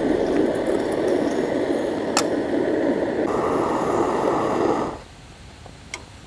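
Kerosene pressure burner running with a steady rushing hiss under a Bialetti moka pot that is bubbling as the coffee comes up. The burner cuts off suddenly about five seconds in as its fuel valve is turned shut, followed by a small metallic click.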